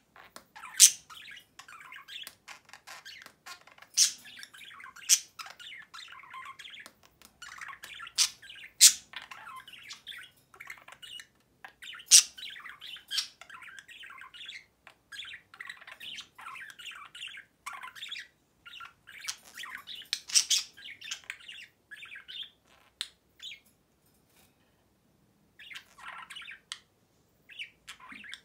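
Male budgerigar warbling and chattering to its own mirror reflection: a steady soft chatter broken by a handful of loud, sharp chirps, with a pause of about two seconds near the end before it starts again.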